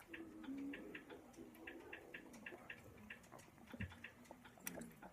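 Faint quick ticking, about three to four ticks a second, over near silence.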